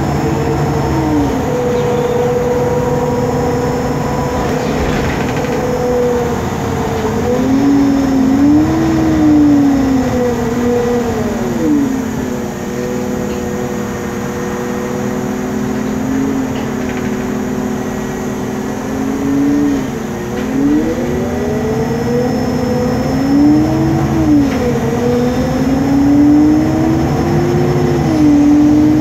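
Noisy whine of the engine cooling fan on a MAN Lion's City CNG articulated bus, heard from inside the moving bus over the engine's low rumble. The whining tones hold steady and then slide up and down several times as the bus gathers speed and slows.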